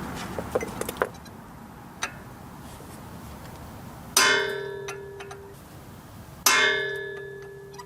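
Hammer striking a round-tip chisel set against a stuck brake-rotor retaining screw on a Honda CR-V front brake. A few light taps come first, then two hard blows about four and six and a half seconds in, each leaving a ringing metallic tone that fades out.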